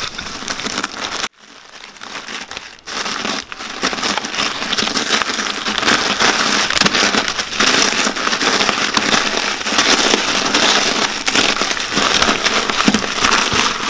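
Cheez-It crackers being crushed by hand inside a plastic zip-top bag: dense crunching with the crinkle of the bag. There is a short lull about a second in, then the crunching keeps going.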